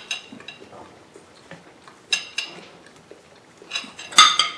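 Metal fork clinking and scraping against a ceramic plate while food is pushed and scooped. There are a couple of sharp ringing clinks about two seconds in and a louder cluster near the end.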